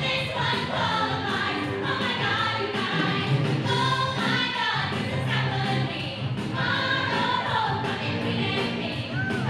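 Pop music with sung vocals over a steady bass line: the backing track of a dance routine.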